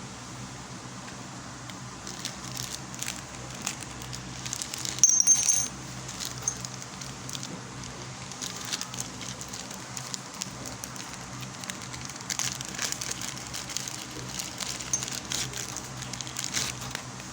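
Parcel packaging being handled and unwrapped: scattered crinkles and small clicks, with a louder, brief crinkling burst about five seconds in.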